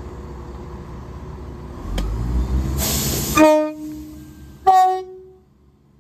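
Class 171 Turbostar diesel multiple unit running with a steady engine rumble that swells about two seconds in, with a short burst of hiss. Then two short horn blasts, the second higher-pitched than the first.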